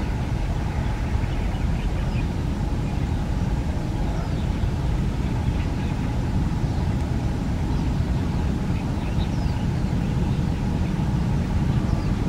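ATR 72-600 twin-turboprop airliner on landing approach: a steady low drone from its engines and propellers, growing slightly louder near the end as it comes closer.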